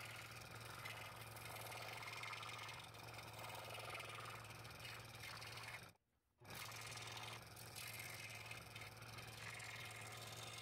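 Scroll saw running and cutting small slots in a thin piece of wood: a steady motor hum under a hiss from the blade. The sound breaks off for about half a second about six seconds in.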